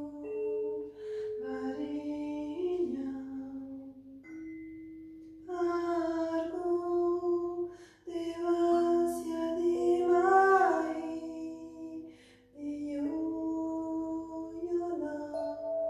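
A woman's voice singing a slow, wordless melody in long held notes that step up and down, with short breaks between phrases. A soft hiss joins in through the middle.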